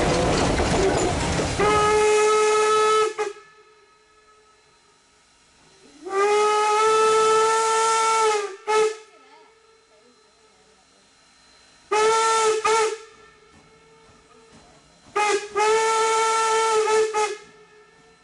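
Steam locomotive whistle, most likely Norfolk & Western 4-8-0 No. 475's, sounding a series of long and short blasts on one steady pitch. Before the first blast there is a brief stretch of steady running noise from the moving train.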